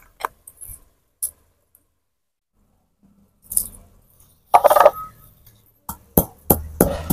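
Whole spices (coriander seeds, cloves, cardamom and cinnamon) in a mortar, with a rattle and clatter a few seconds in. About six seconds in, the pounding with a pestle begins: sharp, regular knocks, about three a second.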